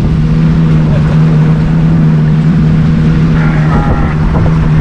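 Motorboat engine running steadily with a constant low hum, under an even rush of wind and water noise.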